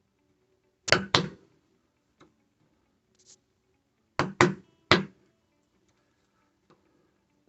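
Sharp knocks of a screwdriver, used as a chisel, being struck into the wooden edge of a door to cut the recess for a deadbolt latch plate: two knocks about a second in, then three more about four seconds in.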